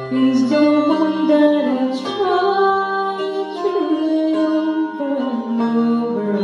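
A woman singing a slow ballad into a microphone over sustained keyboard accompaniment.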